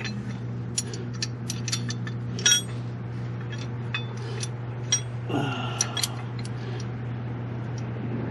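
Scattered small metal clicks and clinks as a linkage pin and its spring-type cotter pin are worked loose by hand from the AutoConnect mower-deck bracket under a John Deere 1025R tractor, over a steady low hum.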